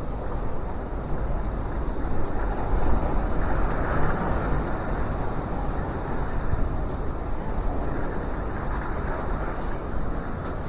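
Strong wind buffeting the microphone: a heavy, gusting rumble that swells and eases, strongest a few seconds in.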